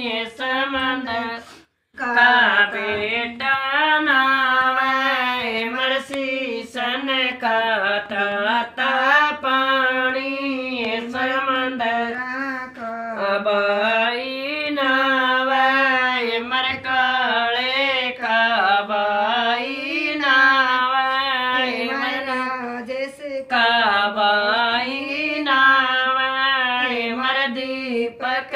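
Unaccompanied female singing of a Haryanvi wedding folk song, a single melodic line rising and falling in repeated phrases, with a short break about two seconds in.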